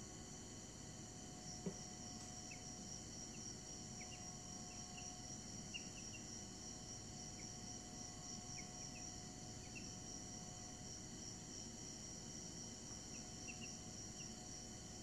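Week-old Brahman chicks peeping softly now and then, short single or clustered peeps over a steady high-pitched hum.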